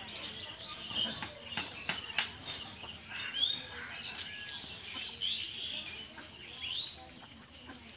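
Outdoor ambience of birds chirping in short rising calls over a steady, high insect drone, with scattered light clicks.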